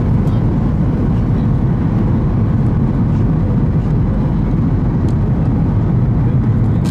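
Boeing 737-800 cabin noise on approach: a steady low rumble of airflow and engines heard from inside the cabin, with no change in level.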